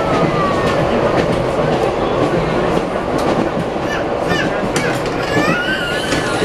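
Inside an ED9M electric multiple unit running at speed: a steady rumble of wheels and carriage, with scattered sharp clicks of wheels over rail joints.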